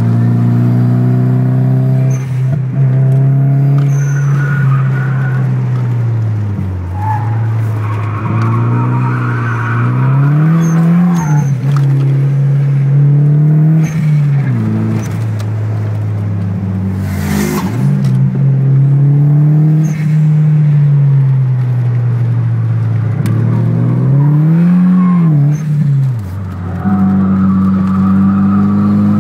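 Nissan Silvia S12's engine heard from inside the cabin while lapping a track, its revs rising and falling through the corners and dropping sharply three times. A brief sharp noise comes about halfway through, as the revs fall.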